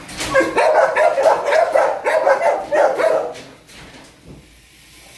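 Caged dogs barking in quick, overlapping barks for about three and a half seconds, then quieting. The barking is excited, at the prospect of being taken out.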